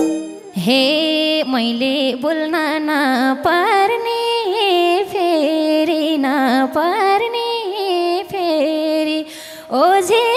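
A woman singing a Nepali dohori folk song solo, with long held notes ornamented with slides and quick turns. The drums and band are largely dropped out behind her voice.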